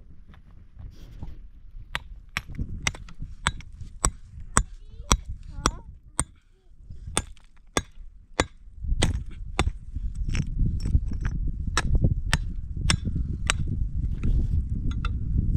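Sharp, repeated blows of a hand tool on hard material, about two a second, with a short pause about six seconds in. A low rumbling noise underneath grows louder in the second half.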